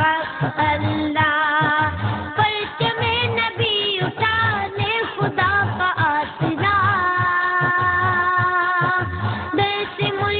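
A boy singing a naat, an Islamic devotional song, in a high voice with long, wavering held notes and ornamented runs over a steady low beat.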